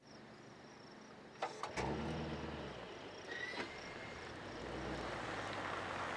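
A few sharp clicks, then a car engine starting with a short low rumble, settling into a steady hiss and rumble. The engine is the Mercedes-Benz GLS 580's twin-turbo V8.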